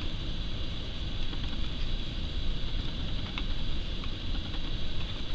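Steady low rumble and hiss, with a few faint ticks in the second half as a metal loom pick knits loops over the pegs of a knitting loom.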